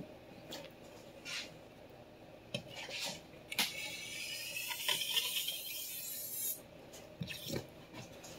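Vintage Clyde Cutlery chef knife's blade being stroked across a sharpening stone: a steady scraping hiss lasting about three seconds from around the middle, with a few light knocks before it.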